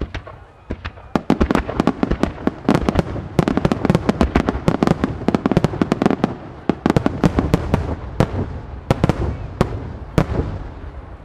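Starmine fireworks: aerial shells launching and bursting in rapid succession, dozens of sharp bangs close together from about a second in, thinning out near the end.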